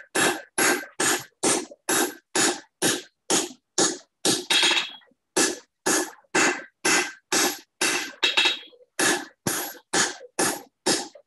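Hand hammer striking hot steel on an anvil's step, about three blows a second with a short pause about five seconds in, each blow ringing briefly. This is the cup of a candle snuffer being shaped over the step of the anvil.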